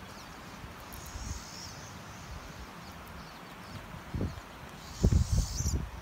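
Wind gusting over the microphone, with low rumbling buffets about four seconds in and a louder cluster near the end, over a steady outdoor hiss. Faint high bird calls come through about a second in and again near the end.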